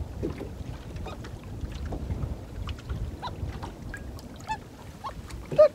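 Common loon giving short calls, one stronger call near the end, over a steady low rumble.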